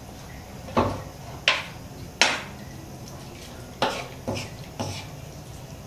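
Wooden spatula scraping and knocking against a nonstick frying pan while shredded pork is stirred: three strokes about two-thirds of a second apart, then three quicker ones near the end.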